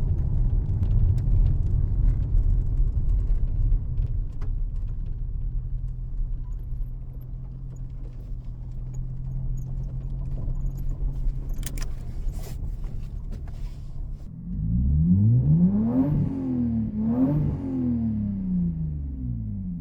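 Lexus GS300's inline-six running on the move at low throttle with a steady low drone, then revved up and back down twice near the end. The engine misfires slightly under load at low rpm, traced to low compression in cylinder 3.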